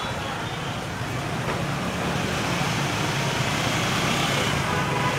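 Steady street traffic noise with a low hum of passing engines.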